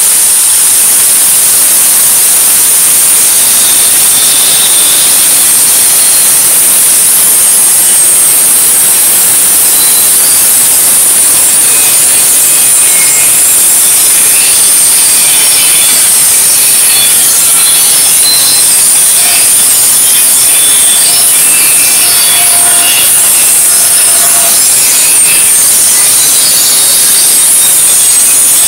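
Angle grinder with a small cut-off wheel cutting through the steel wall of an old propane tank. It runs at a steady, very loud level with a high-pitched grinding.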